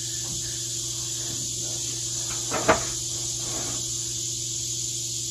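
Steady, high-pitched insect chorus hissing without a break, with a single sharp knock about two and a half seconds in.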